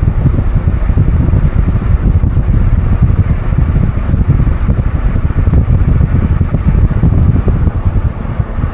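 A car driving, with loud, rumbling low road noise and wind buffeting on the microphone.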